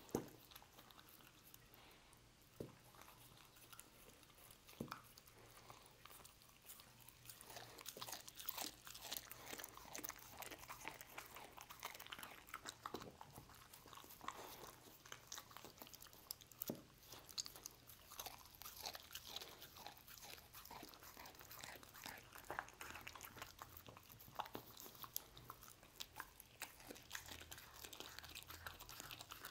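Dog chewing and gnawing a roast beef joint: faint, irregular wet clicks and crunches, sparse at first and much busier from about seven seconds in, with one sharper click right at the start.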